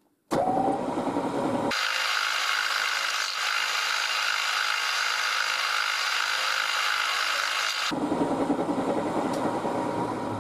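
A milling machine's spindle starts up and a 10 mm twist drill cuts down through two square steel tubes, with a loud high-pitched cutting sound for about six seconds. At about eight seconds in the cutting sound stops and only the spindle is heard running on.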